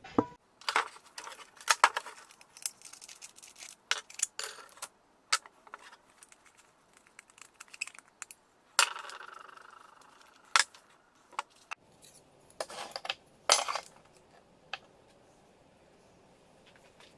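Metal parts of an angle grinder being taken apart by hand and set down on a wooden table: irregular clicks, clinks and clatters. About nine seconds in, one louder metal clank rings on for a second or so.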